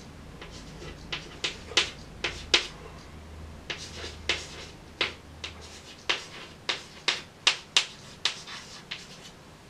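Chalk writing on a blackboard: a string of sharp taps and short scratches as figures are written, about two strokes a second.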